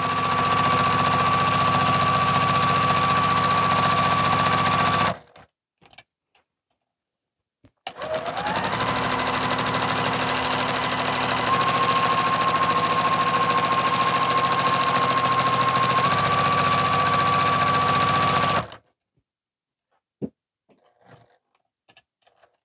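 A Juki TL-2010Q sewing machine with a walking foot stitching in the ditch through the quilt layers at an even speed. It stops about five seconds in, starts again with a rising whine about three seconds later, runs steadily for about ten seconds with two slight steps up in pitch, then stops. A few faint clicks follow.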